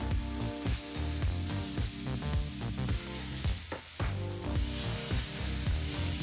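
Masala-marinated salmon steaks sizzling steadily in hot oil on a grill pan, with background music playing over it.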